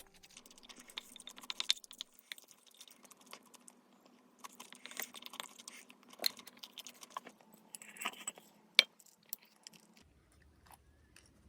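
A person eating: soft chewing with scattered small clicks and taps, and a few sharper clicks about six and nine seconds in.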